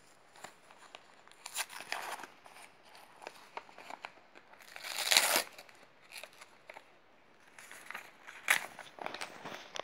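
Paper envelope being handled and torn open by hand: scattered rustling and crinkling, with the loudest tearing rip about five seconds in and another sharp one near the end.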